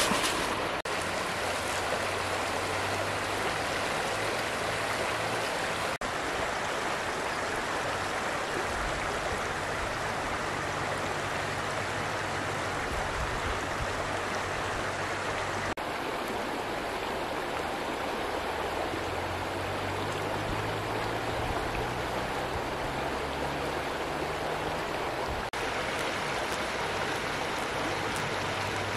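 River water rushing steadily over stones in shallows.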